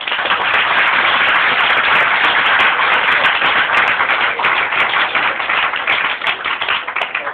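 Loud audience applause, starting suddenly and dying away near the end.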